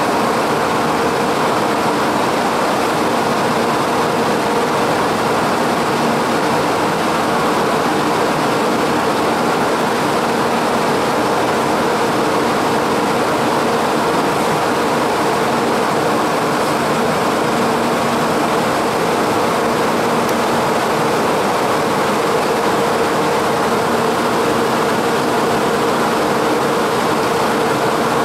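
Steady, unchanging whirring hum of a Taiwan High Speed Rail 700T trainset standing at the platform, its air-conditioning and equipment cooling fans running, with a few faint steady tones in it.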